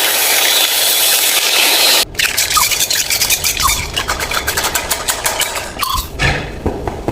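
Car being dragged by a winch: a loud rushing hiss that cuts off about two seconds in, then rapid scraping and rattling clicks with short squeaks.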